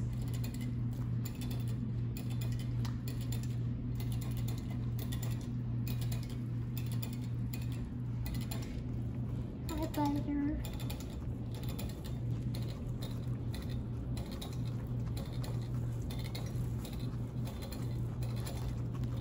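Guinea pigs chewing hay: a steady run of small, rapid crunching clicks over a low steady hum.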